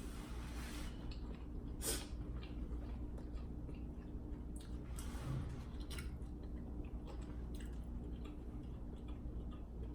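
A person chewing a mouthful of food close to the microphone, with scattered wet smacks and crunches.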